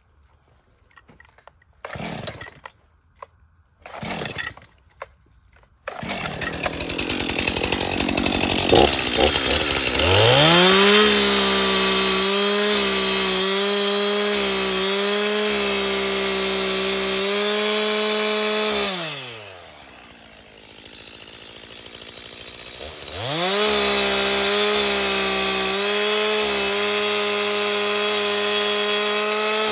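Stihl two-stroke chainsaw being pull-started, with a few short bursts before it runs, then revved up to full throttle and ripping lengthwise along a wooden slab. It drops back to idle for a few seconds about two-thirds of the way through, then revs up and cuts again, easing off right at the end.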